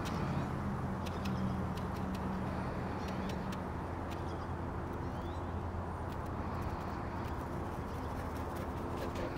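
Steady low hum of a nearby idling vehicle engine, its tone shifting about four seconds in, with scattered faint clicks.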